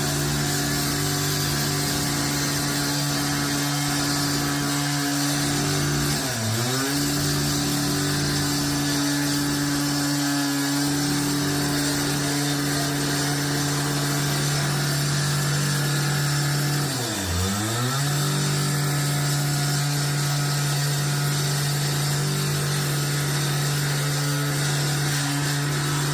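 Concrete saw running at high speed, steady and loud. About 6 seconds in and again about 17 seconds in, its pitch dips sharply and recovers within a second.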